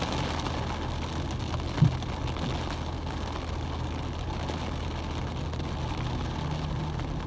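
Heavy rain pattering on a car's windshield and roof, heard from inside the cabin, over the steady low hum of the car idling in traffic. A single short knock about two seconds in.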